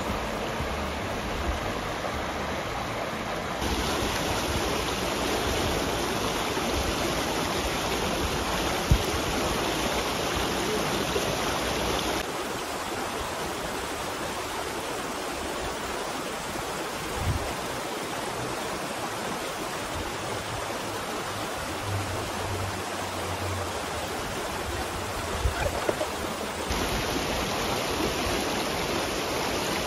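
Shallow river rushing over stones and small rapids, a steady noise of running water that shifts in level a couple of times, with a few small knocks.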